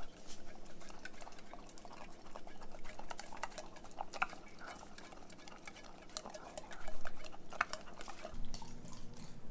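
Dog licking and nosing at an open tin can of wet cat food held up to its mouth, a scattered run of small wet clicks and smacks against the can.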